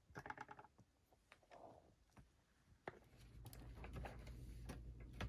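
Near silence: a few faint clicks, with a low steady hum coming in about three seconds in.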